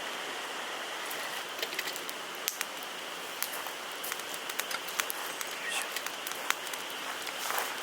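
Wood fire burning in a fire pit: a steady hiss with many irregular sharp crackles and pops.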